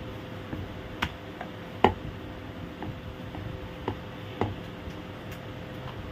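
Wooden rolling pin rolling dough on a round rolling board, with a few sharp knocks of the pin against the board, the loudest about two seconds in, over a faint steady hum.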